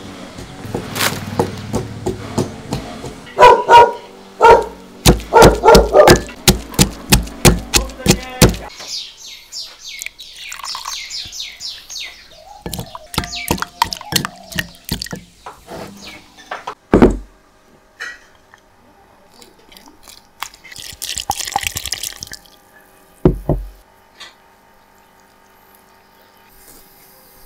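Wooden pestle pounding in a glazed clay mortar: a run of loud knocks, about three a second, lasting some five seconds. Later come liquid pouring into a bowl and a couple of single knocks as the pounded greens are worked into flour.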